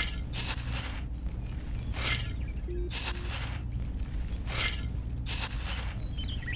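Dry rice grains scooped with a miniature shovel and tipped into a plastic toy trailer bed: about five short hissing rushes of pouring grains, roughly a second apart.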